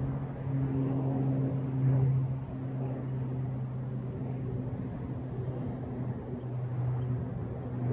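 A steady low machine hum holding one pitch, with a rough rumble of wind on the microphone underneath.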